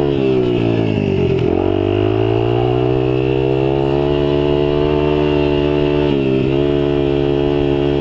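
Dirt bike engine running under way along a trail. The revs drop and climb back about a second and a half in, hold steady, then dip briefly and pick up again about six seconds in.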